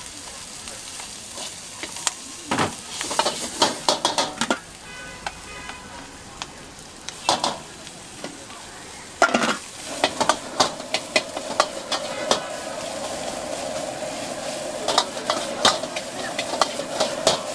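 Stir-frying in a wok: a steady sizzle of vegetables and rice in hot oil, broken by sharp metal clicks and clanks. In the first half these are scissors snipping the bok choy in the pan. From about ten seconds in, a metal ladle scrapes and knocks rapidly against the wok as rice and greens are tossed.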